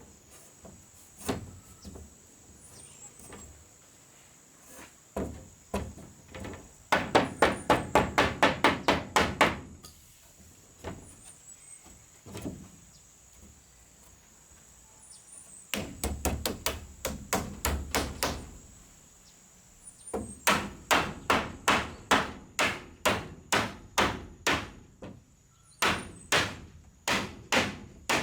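Hammer blows on wood in several quick runs, the fastest about five strikes a second, with pauses between the runs. A steady high-pitched tone runs underneath.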